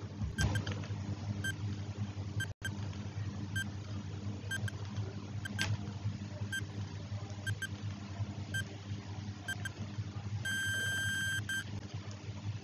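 Countdown timer sound effect: short pitched beeps about once a second over a low steady drone, ending in a rapid beeping alarm for about a second as the timer runs out.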